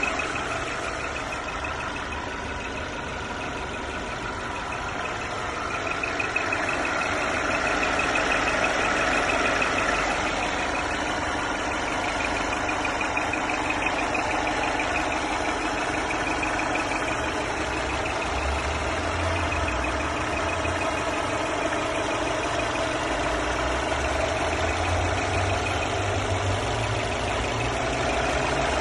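Mercedes-Benz E350 Coupé engine running steadily, with a steady high whistle sounding over the engine noise.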